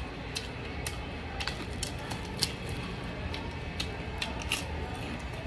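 Close-up chewing of crispy fried fish: sharp, irregular crunches and wet mouth clicks, a few each second.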